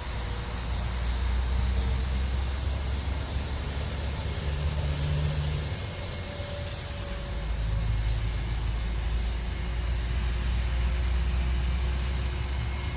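Automotive paint spray gun hissing as base coat is sprayed onto a car bumper, the hiss swelling and easing slightly with each pass, over a steady low hum.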